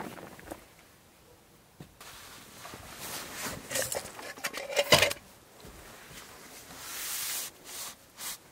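Scattered rustles and clicks of things being handled, with one sharp knock about five seconds in and a brief rushing hiss near the end.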